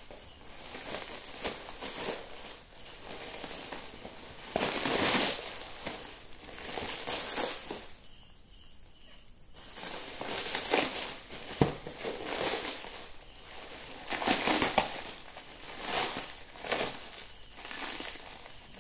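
Thin black plastic wrapping crinkling and rustling as it is pulled apart and handled by hand, in irregular bursts with a short lull about eight seconds in and a sharp click a few seconds later.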